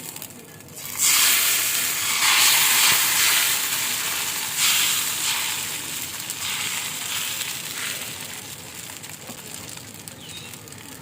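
Thin neer dosa rice batter sizzling on a hot, oiled tawa: a loud hiss breaks out about a second in, surges again twice, then slowly dies down.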